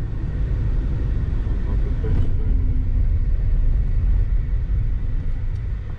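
Steady low rumble of a moving bus, heard from inside the cabin.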